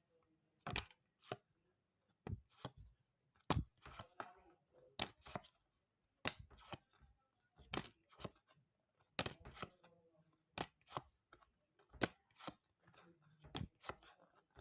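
Pokémon trading cards and their foil booster-pack wrappers being handled: short, sharp crackles and clicks at an irregular pace, roughly one every half second to a second.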